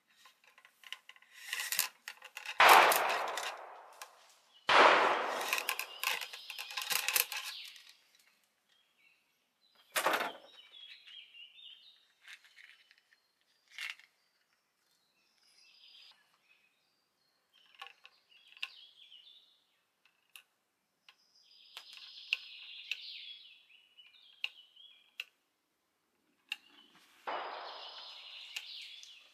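Percussion over-under double rifle fired twice, one barrel after the other, about two seconds apart; each black-powder shot, loaded with buckshot, dies away over a second or more. Birds chirp in the quieter stretch afterwards.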